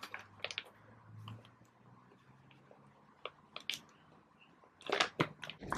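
Soft rustles and light clicks of clear plastic as a sleeved photocard is slid into a pocket of a plastic 8-pocket binder page, with a few sharper crinkles about five seconds in.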